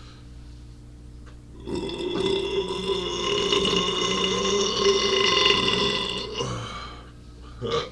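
A man's long, loud burp lasting about five seconds, starting a couple of seconds in, with a short burst of sound near the end.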